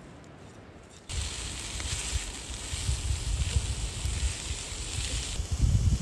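Wind buffeting the microphone in gusts, starting abruptly about a second in, with a steady high hiss over it.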